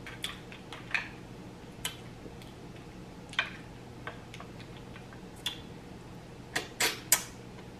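Scattered sharp clicks and taps of mussel shells being handled: picked from a glass bowl and eaten from, with a few quick clicks close together near the end as a mussel is taken into the mouth. A faint low hum runs behind.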